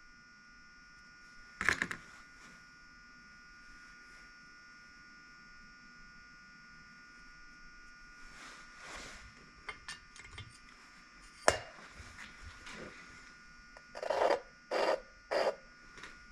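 Workshop handling sounds of an engine cylinder-head valve job: a few sharp knocks and three short scrapes near the end, over a steady faint electrical hum.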